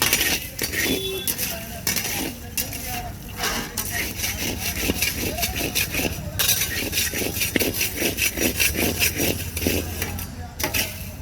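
Fast rhythmic scraping of a stirrer through a dry puffed-rice snack mix in a metal pan, about three strokes a second, over a low street rumble.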